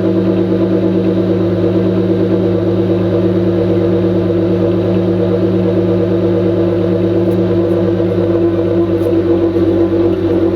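2002 Nissan Maxima SE's 3.5-litre V6 running at a steady idle through its exhaust, an even engine note that does not rise or fall.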